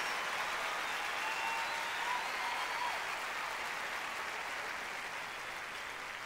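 Stadium crowd applauding, the clapping slowly dying down.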